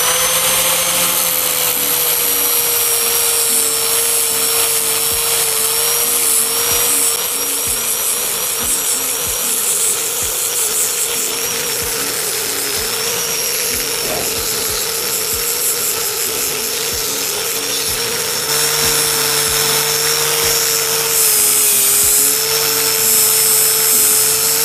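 A Black+Decker G650 650 W 4-inch angle grinder with a flap disc runs steadily while grinding rust off a steel bar, a high motor whine over the rasp of the abrasive on the metal. It spins up at the start, and its pitch sags slightly where it is pressed harder.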